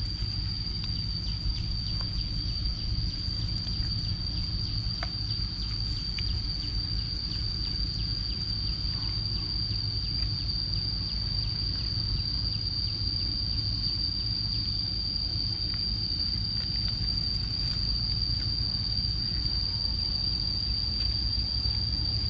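Insects droning in one steady high note without a break, over a low rumble, with a few faint knocks.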